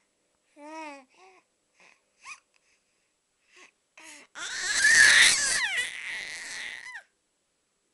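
Baby babbling in short wavering coos, then a loud, breathy squeal lasting a couple of seconds from about halfway through.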